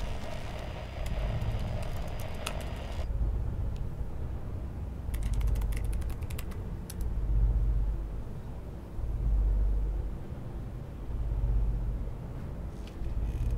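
A low rumbling drone that swells and fades every couple of seconds, with a quick run of computer keyboard clicks about five to seven seconds in and a few more near the end. A hiss with a faint high tone cuts off abruptly about three seconds in.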